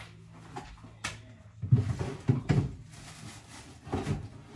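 Kitchen handling noises: scattered clicks and knocks, with a cluster of heavier thuds about two seconds in, as groceries are moved on the counter and a fridge door is opened.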